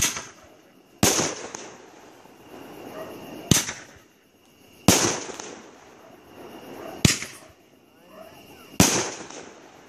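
Medusa Revenge 500 g firework cake firing its shots: six sharp bangs, one every one to two seconds, each trailing off, with a hiss building between some of them.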